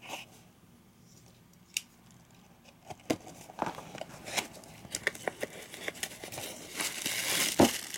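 Cardboard parts box being opened by hand. One click near two seconds in, then scattered clicks and scrapes of the flaps, and a denser crinkling and tearing of the packaging over the last couple of seconds.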